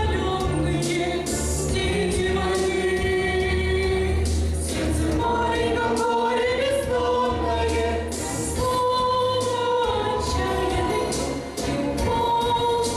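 Music from a patriotic song performance: voices in a choir-like blend singing long held notes over an instrumental backing track with a low bass line.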